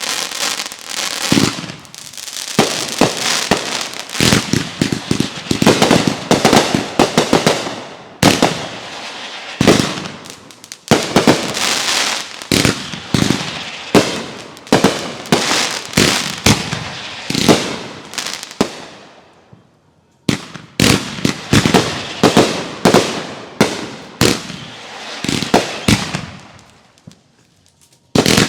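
Consumer aerial fireworks going off in quick succession: many sharp bangs and crackling reports, with a brief lull about twenty seconds in and another shortly before the end.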